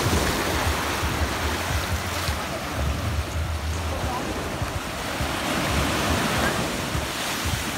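Sea surf breaking and washing up a sandy shore in a continuous rush.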